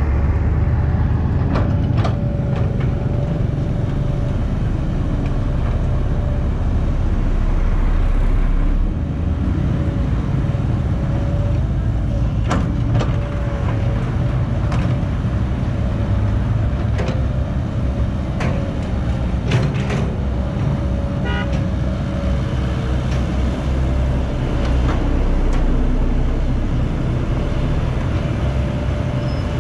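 Caterpillar 312B hydraulic excavator digging: its diesel engine runs steadily under load with a steady whine over it, broken by several sharp clanks.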